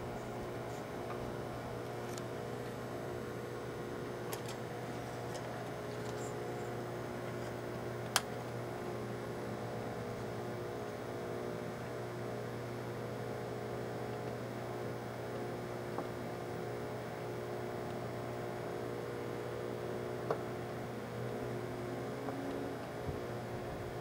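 Microwave oven running with a steady hum, a stack of compact discs inside. A few sharp clicks, the loudest about eight seconds in, from sparks arcing on the discs' metal layer.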